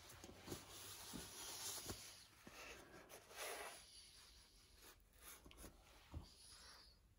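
Faint rubbing and rustling of a paper towel wiping the valve-cover gasket surface of a V-twin engine's cylinder head clean, with a few light taps.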